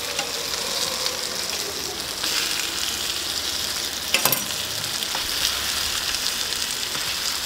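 Food frying in oil on a hot griddle, a steady sizzle, with a short metal clatter about four seconds in.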